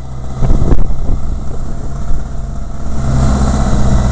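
BMW K1100LT motorcycle's inline four-cylinder engine running at low road speed, with two brief knocks under a second in. About three seconds in, the engine and rushing air get louder.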